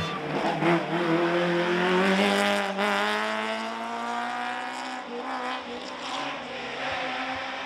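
Classic racing car engine accelerating hard, its note rising steadily for several seconds, then levelling off and easing.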